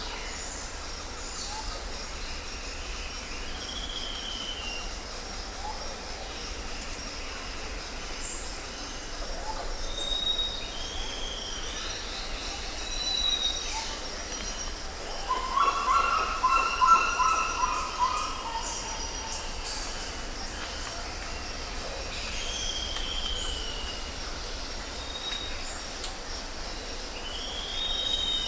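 Jungle ambience: birds calling over a steady high-pitched insect drone. A short arched call repeats every few seconds, and a louder, lower call of rapid notes comes about halfway through.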